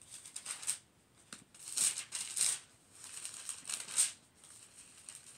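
Thin Bible pages being flipped and handled, a run of papery rustles and flicks, the loudest about two seconds in and again about four seconds in.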